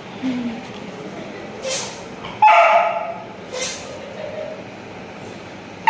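Beagle puppy barking in play: one loud, sharp bark about halfway through, a few softer sounds around it, and another bark starting right at the end.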